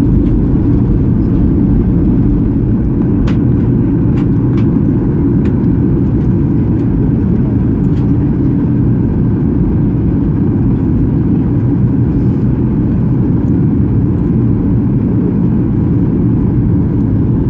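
Boeing 737-800 cabin noise in flight: a steady low rumble of the CFM56 engines and airflow, with a few faint clicks in the first half.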